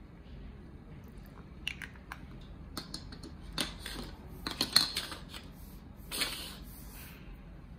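Small plastic nail-glitter jars being set down and moved about on a tabletop: a scattered series of light clicks and taps, the loudest a little before five seconds in.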